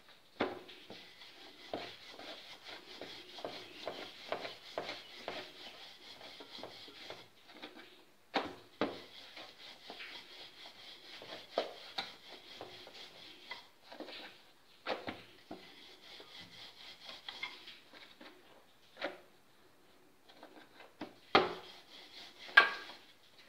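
Wooden rolling pin rolling out a sheet of maida dough on a board: repeated rubbing back-and-forth strokes, with a few sharper knocks, the loudest near the end.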